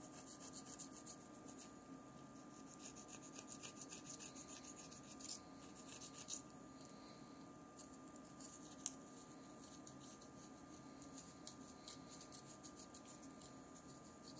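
Faint, quick scraping strokes of a scraper working softened OCA glue off a phone's LCD screen, coming in runs of rapid strokes, with one sharp click about nine seconds in.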